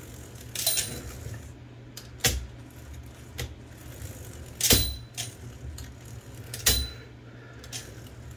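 Metal parts of an Olivetti Linea 98 typewriter's carriage and gear train clicking and clinking as they are handled and moved by hand: about seven sharp knocks spaced a second or so apart, some with a brief metallic ring, over a steady low hum.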